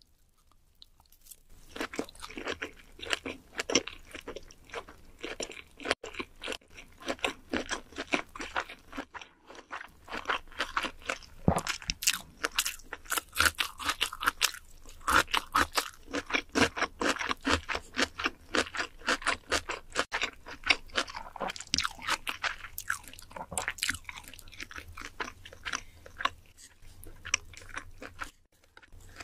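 Close-miked mouth sounds of someone chewing a mouthful of sushi: rapid wet clicks and smacks, dense and steady, starting about a second and a half in and dying away near the end.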